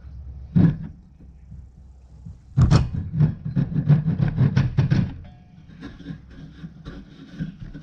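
A single sharp knock, then a quick run of knocking or scraping strokes, about five a second, lasting roughly two and a half seconds.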